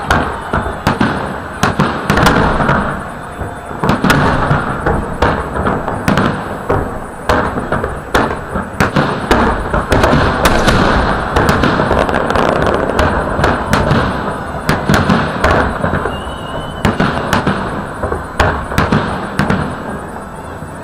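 Large aerial fireworks shells bursting in a dense barrage: a rapid, irregular string of bangs, several a second, over a continuous rumble of overlapping explosions.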